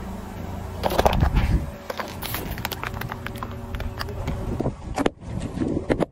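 Thin clear plastic cups cracking and snapping as a slowly rolling car tyre crushes them on asphalt, the loudest crunch about a second in and many sharp snaps after it, over the car's low rumble. Near the end a few more crunches as cardboard juice cartons are squashed under the tyre.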